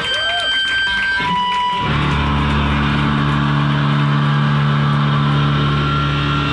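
Live rock band on electric guitars: high feedback tones swoop up and down in pitch. About two seconds in, a loud distorted chord comes in and is held ringing.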